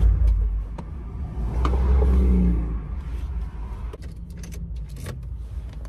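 Car engine and cabin rumble heard from inside the car while parking, swelling twice in the first three seconds. It then settles quieter, with a few sharp clicks.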